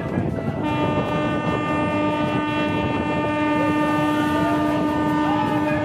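Train horn sounding one long steady blast, starting about half a second in and held on, over the rumble and clatter of the moving passenger coaches.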